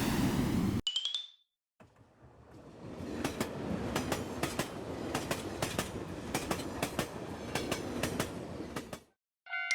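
Train running over rail joints: a rumble with a clickety-clack of paired wheel clicks that fades in about two seconds in and cuts off suddenly near the end. Before it, a loud rushing noise stops abruptly just under a second in, followed by a brief high tone. Marimba-like music starts at the very end.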